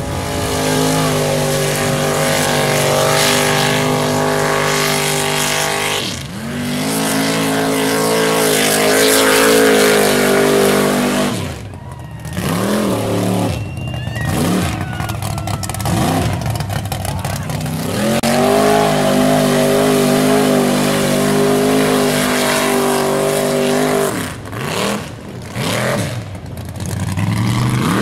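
Lifted mud trucks' engines run flat out at high revs through mud pits, one run after another. Each holds a steady pitch for about five seconds, then drops off sharply, with a rougher, lower-revving stretch in the middle.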